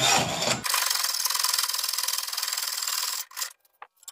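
Hacksaw cutting a lengthwise slot into a metal ski pole tube clamped in a vise: steady back-and-forth rasping of the blade on the tube, breaking off briefly just before the end.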